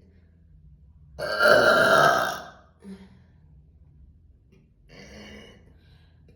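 A woman burps once, loud and long. The burp starts about a second in and lasts about a second and a half. A much fainter sound follows a few seconds later.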